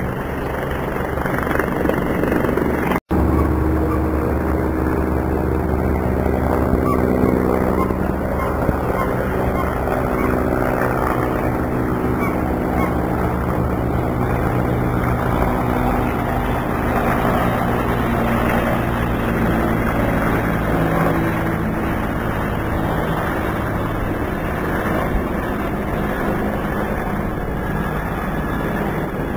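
Steady engine drone with several held tones, slowly shifting in pitch, over a rushing rumble, broken by a momentary dropout about three seconds in.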